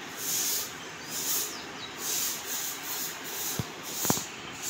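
Footsteps and clothing rustle from someone walking with a handheld phone, a rhythmic rubbing hiss about once or twice a second, with two sharp knocks near the end.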